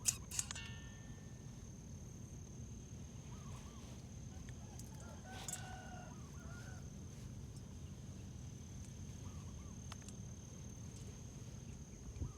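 Chickens calling faintly, with a few short calls and a louder one about five and a half seconds in, over a steady high-pitched whine and low rumbling background noise.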